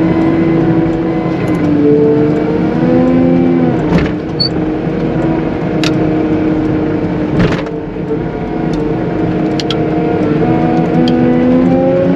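CAT 906M compact wheel loader's diesel engine working under load, revving up and easing off as it pushes heavy wet slush. A couple of sharp knocks come about 4 and 7.5 seconds in.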